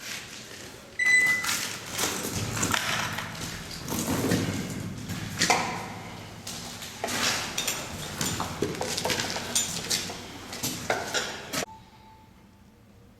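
Hard objects clattering and scraping close to the microphone in a rapid, irregular run of knocks, with a brief metallic ring about a second in. It stops abruptly near the end.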